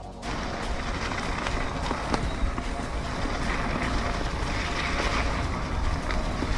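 Ride noise from an electric mountain bike on a trail: a steady rush of wind and tyre noise with a few small knocks and rattles.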